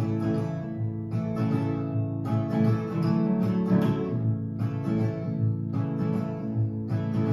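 Two acoustic guitars playing together: an instrumental folk passage with steadily repeated chords and picked notes, no voice.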